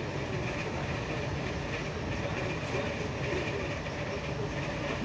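ED4M electric commuter train running at speed, with the steady noise of its wheels on the rails.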